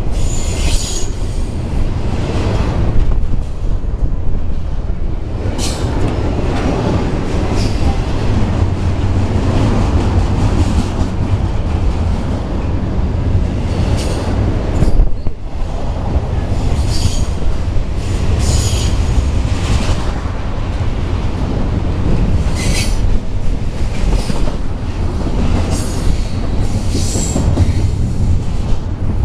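BNSF double-stack container train passing close at speed: a loud, steady rumble of wheels on the rails, with short high-pitched wheel squeals every few seconds.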